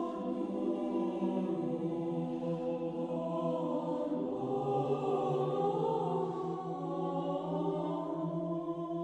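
Choir singing a slow chant in long held notes, the voices shifting pitch gradually with no break.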